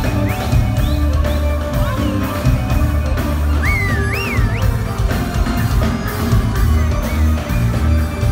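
Live band playing Mizrahi-style pop, with a heavy, regularly pulsing bass-and-drum beat and a violin. A couple of high sliding notes rise and fall about halfway through.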